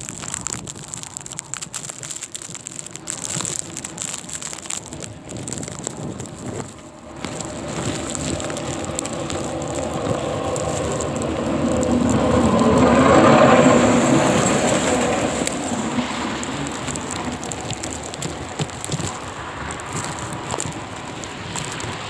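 Blizzard wind and wind-driven snow on the microphone: a steady rushing noise that swells to its loudest about halfway through, then eases.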